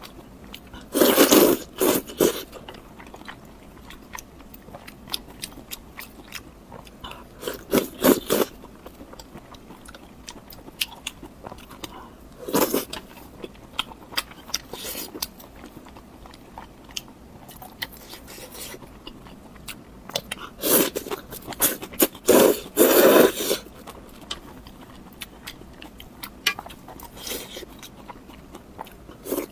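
Crunchy food bitten and chewed close to the microphone: loud crunching bites in short clusters, the longest near the end of the second third, with small mouth clicks and chewing in between.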